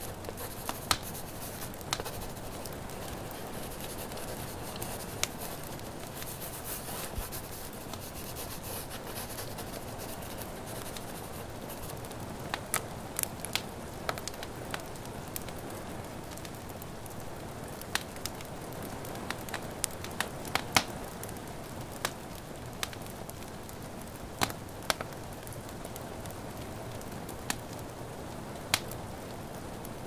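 Wood fire crackling, with sharp irregular pops scattered throughout, over a steady hiss of rain. A few seconds in there is a stretch of scratchy, papery rustling.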